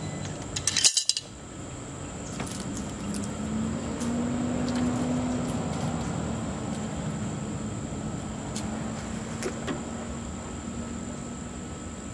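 Metal tools and hardware clinking, with a sharp clatter about a second in, then a few light clicks over a low steady hum.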